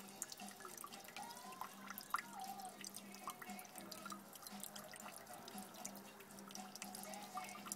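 Water dripping and trickling from a water butt's tap in irregular drops and small splashes.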